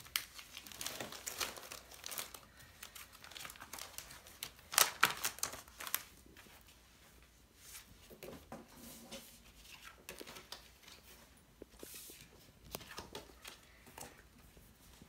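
Plastic crinkling and rustling as Pokémon card binder sleeves and card packaging are handled, in scattered bursts, loudest about five seconds in.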